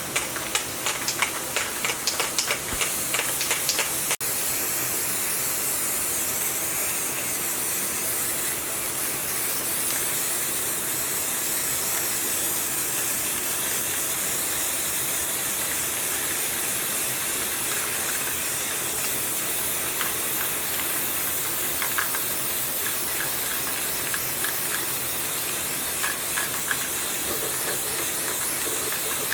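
Steady, loud hissing spray with no pitch to it. There are rapid crackly ticks for the first few seconds, then an abrupt break and a smoother, even hiss.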